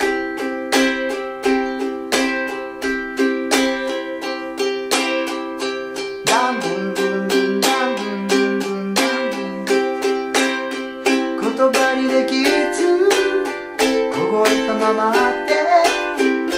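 Ukulele strummed with steady all-downstroke strums, about three a second, in an accented ton-ton-TAN-ton pattern where some strokes are played louder than others.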